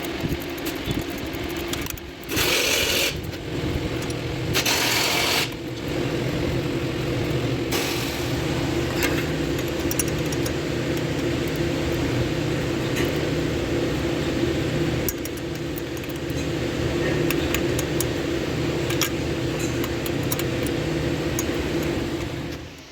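Workshop sounds while a fan clutch is being bolted back on: a machine hums steadily throughout, with two loud hissing bursts about two and five seconds in and scattered light metallic clinks of tools.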